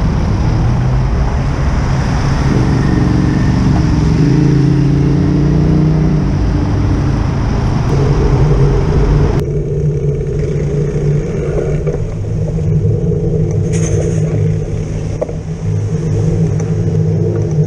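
Urban road traffic heard from a bicycle: the steady running of lorry and car engines close by. A rushing hiss over it cuts off abruptly about nine seconds in.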